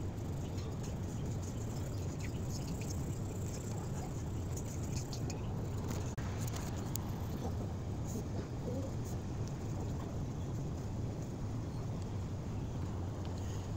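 Steady low background rumble like distant traffic, with faint light ticks scattered through it; it drops out for an instant about six seconds in.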